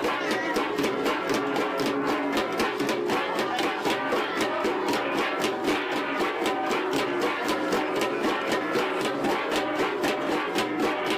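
Ensemble of Kalinga flat gongs (gangsa) played in a fast, steady, interlocking beat of several strokes a second, the struck tones ringing on over one another.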